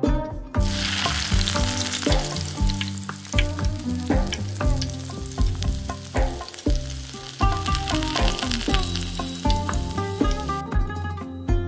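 Dried apricots boiling hard in sugar syrup in a steel pan, a steady bubbling sizzle that starts about half a second in and cuts off about a second before the end. Plucked-string background music plays beneath it.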